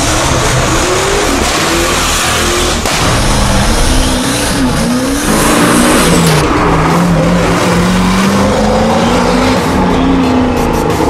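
Zenvo ST1 supercar's engine revving as the car drives off, its pitch rising and falling repeatedly.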